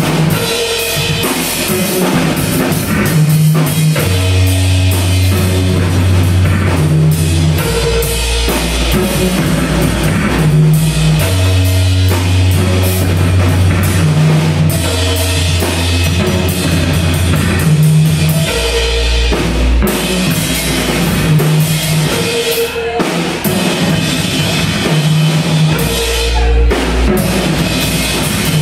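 Live instrumental trap music: an acoustic drum kit played hard over electronic backing of long, low bass notes and a short synth figure that repeats about every two seconds. There are no vocals.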